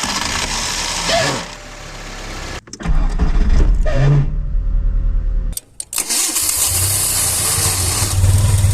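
Starter motor cranking an engine, with the starter's Bendix drive failing to retract: the pinion stays engaged and drags against the flywheel ring gear, grinding over the engine. It is heard three times, each stretch cut off abruptly.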